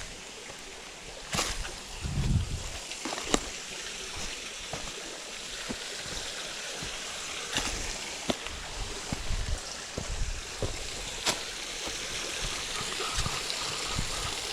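Creek water running and trickling, with a few scattered splashes and sharp clicks.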